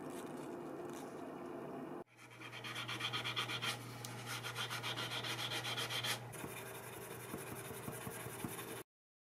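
Steel wool scrubbed quickly back and forth on a freshly nickel-plated fishing spoon to polish it: a rasping rub of several strokes a second that starts abruptly after a couple of seconds of steady background hum, eases off about six seconds in, and cuts off near the end.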